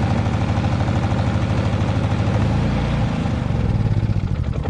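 Predator 3500 inverter generator's 212cc air-cooled single-cylinder overhead-valve engine running steadily just after a cold start, choke still on.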